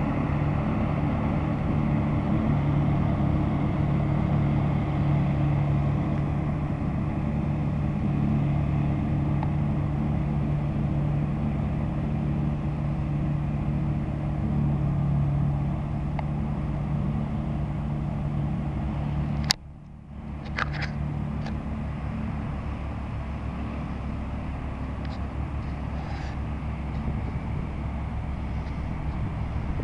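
John Deere tractor engine running under steady load, driving a Seppi flail mulcher through dry grass, with a continuous drone. About two-thirds of the way through, a sharp click and a momentary drop break the sound, and the drone carries on a little quieter.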